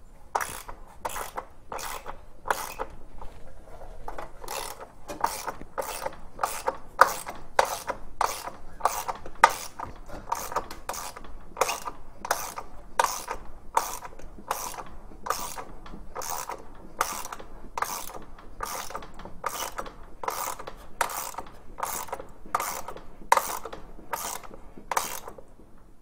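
Hand ratchet wrench turning a bolt, its pawl clicking in short bursts with each swing, about one and a half strokes a second.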